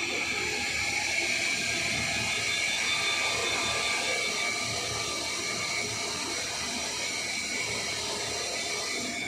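Automatic keyway milling machine running: a steady hiss with a high whine made of several steady tones, easing off at the very end.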